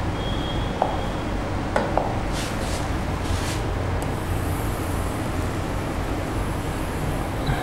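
Steady background hum, with a few sharp taps in the first two seconds and brief scratchy strokes a little later: a stylus tapping and writing on a touchscreen teaching board.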